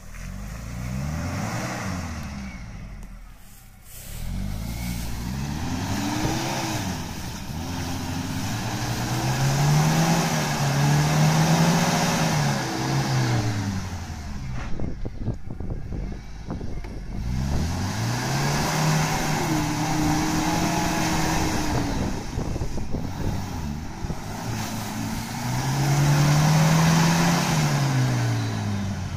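Opel Frontera's engine revving up and falling back repeatedly as the 4x4 works through deep mud and water, with the spinning wheels churning mud.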